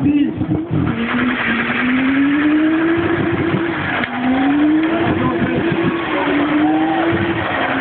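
A car engine held at high revs during a burnout, its pitch climbing in three long sweeps, over the steady hiss of spinning tyres.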